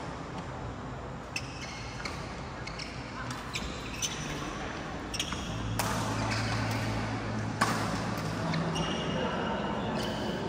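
Badminton rackets hitting shuttlecocks in rallies, a string of sharp irregular cracks, some with a short high ring, echoing in a large sports hall.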